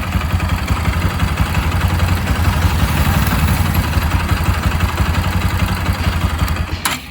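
Bajaj Pulsar 200 single-cylinder engine idling with a slight chain rattle, which the mechanic puts down to a timing chain that has loosened and grows noisy once the engine is warm and needs replacing. The engine is switched off near the end.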